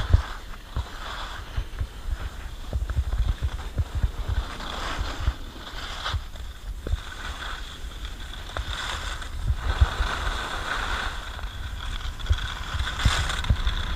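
Wind buffeting the camera's microphone in irregular low gusts, over a steady hiss and scrape of a ride sliding fast down a groomed snow slope.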